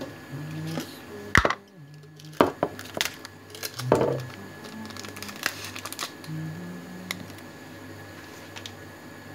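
Several sharp clicks and knocks of pots and utensils being handled, loudest about one and a half, two and a half and four seconds in, over low background music or humming.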